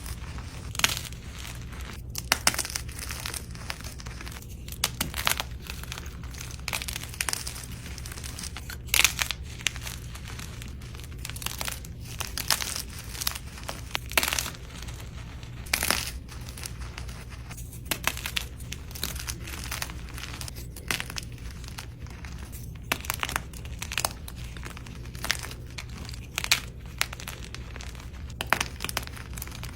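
Dusty, crunchy blocks of dyed gym chalk being crushed and crumbled, giving a run of irregular dry crunches and crackles, some sharper and louder than others, over a steady low hum.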